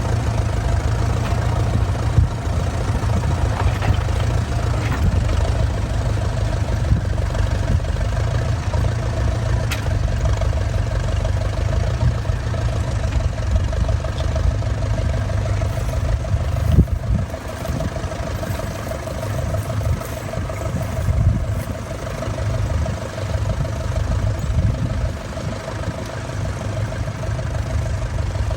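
Vintage tractor engine running steadily, a low rumble with a steady hum over it.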